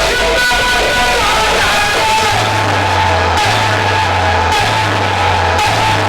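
Loud music played through a DJ sound system during a sound check: a sung melody over a heavy bass line, the bass coming in about two seconds in and changing note roughly once a second.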